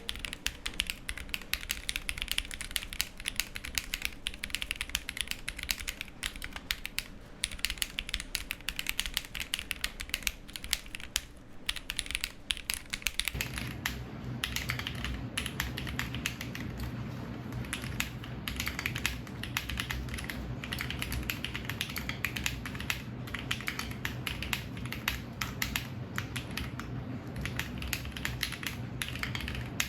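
Continuous fast typing on a Ginkgo65 custom mechanical keyboard fitted with Peri switches and GMK keycaps: a dense run of keystroke clacks. About halfway through, a low steady hum comes in underneath.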